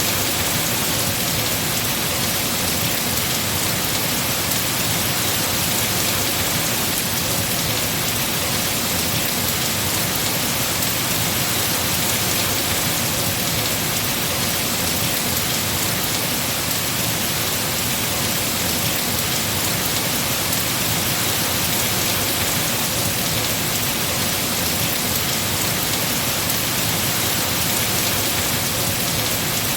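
Heavy rain falling steadily on tree foliage, an even dense hiss of drops without a break.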